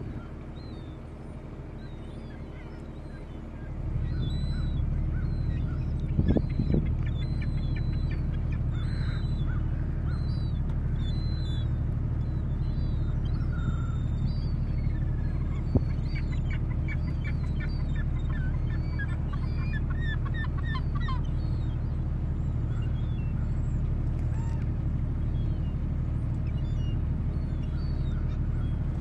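Gulls calling again and again, with a quick run of calls about halfway through, over a steady low rumble that comes in about four seconds in. A couple of brief knocks are heard, one at about six seconds and a sharper one near the middle.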